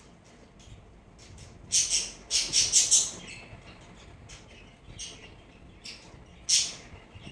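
A small bird chirping: a quick run of loud, harsh chirps about two seconds in, one more loud chirp near the end, and fainter chirps between.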